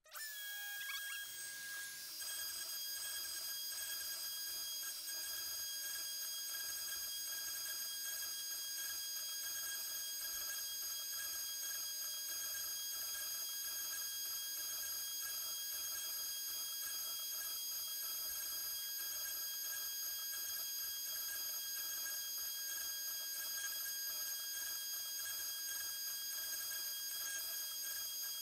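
Shapeoko 3XL CNC router running a cut, its router spindle giving a steady high-pitched whine of several held tones that starts suddenly and holds unchanged.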